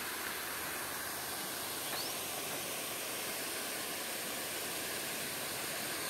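Steady hiss of water spilling over a stone dam spillway and running down onto the concrete apron.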